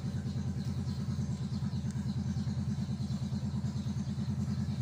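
An engine running at a steady idle, a low, even pulsing hum.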